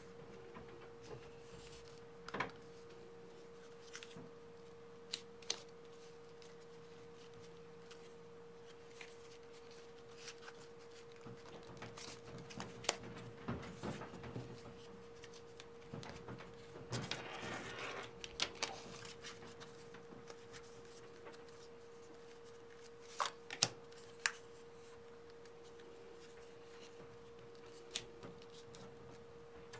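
Faint scattered clicks, taps and rubbing as the metal plates of a Ridge titanium wallet and the cards held in it are handled, with a few sharper clicks near the end and a steady faint hum throughout.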